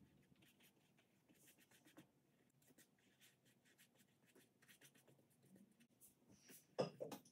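Faint, scratchy strokes of a flat brush dabbing watercolour onto canvas, with a brief louder knock near the end.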